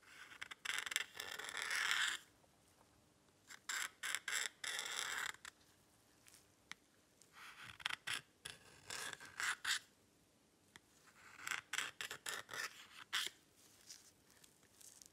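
A pointed metal tool scraped hard across the plastic back panel of a Samsung Galaxy A50, scratching it. It comes in four scraping bouts of about two seconds each, with small clicks and taps between them.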